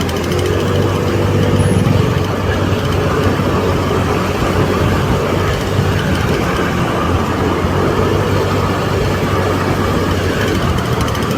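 Vehicle engine running with road noise while driving, a steady low hum.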